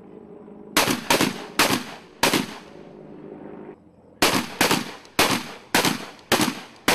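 Shotguns firing on a range: four shots about half a second apart, a pause of about two seconds, then a second rapid string of about six shots, each blast trailing off in a short echo.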